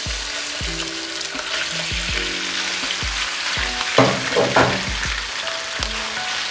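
Marinated beef tenderloin sizzling as it sears in hot cooking oil in a skillet, a steady frying hiss with a few louder crackles about four seconds in.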